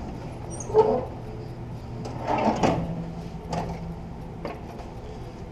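Sheet-metal workpieces being handled and shifted on the bench or brake: a sharp metallic knock about a second in, a scraping rustle a second later, then a few light taps. A steady low hum runs underneath.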